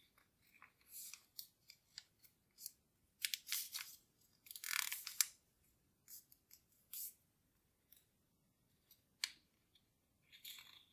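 A small sheet of origami paper rustling and crinkling in the hands as it is folded and creased, in a string of short crackles that are busiest about three to five seconds in.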